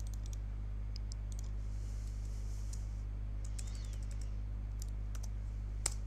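Scattered keystrokes on a computer keyboard, with one louder key tap near the end, over a steady low hum.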